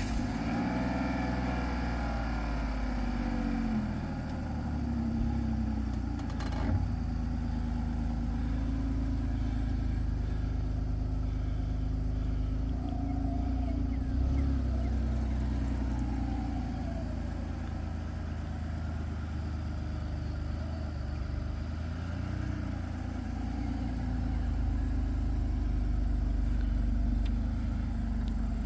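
A 2006 Ford Freestyle's 3.0-litre V6 idling steadily just after a start, with one sharp click about seven seconds in.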